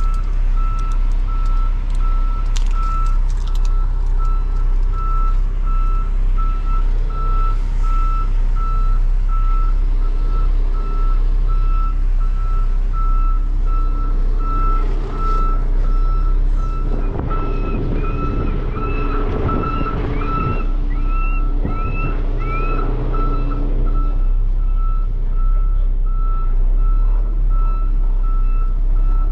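A semi truck's backup alarm beeps steadily, about two beeps a second, while the truck reverses, over the steady running of its diesel engine.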